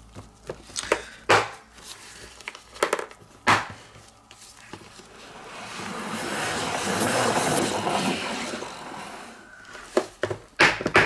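Plastic salad spinner: a few clicks and knocks as the lid is handled, then a whirring rush that swells for a few seconds as the basket spins and dies away, followed by more clicks near the end.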